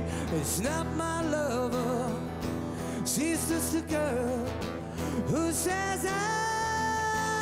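A man singing a ballad to acoustic guitar, with vibrato on his notes, holding a long note near the end.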